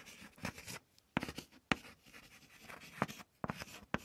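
A marker pen drawing in short, scratchy strokes, several in a row with brief pauses between them.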